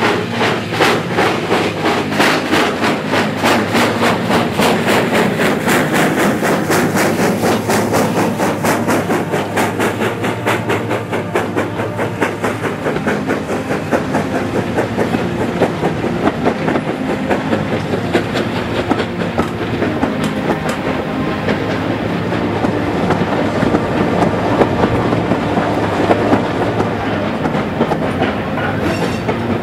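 Steam train running: a steady, fast rhythm of beats over a steady low hum.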